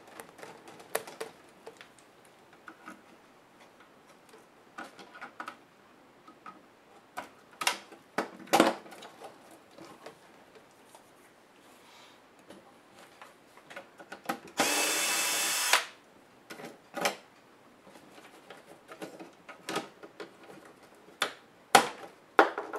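Laptop disassembly: scattered clicks and taps of a screwdriver and small plastic and metal parts being handled. About two-thirds of the way through comes one loud, steady mechanical whirr lasting just over a second.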